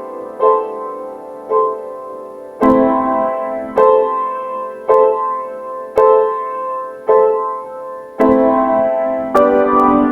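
Slow piano music: single notes and chords struck about once a second, each left to ring and fade.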